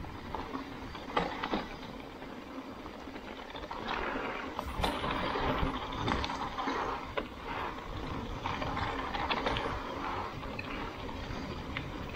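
Mountain bike riding down a dirt trail: tyres hissing over the ground with frequent sharp clicks and rattles from the bike, under a low rumble of wind on the microphone. It gets louder and hissier from about four seconds in.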